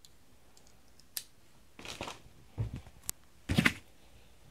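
A sharp click about a second in, then several short scrapes and rustles of a cardboard shipping box being handled and pulled open, the loudest near the end.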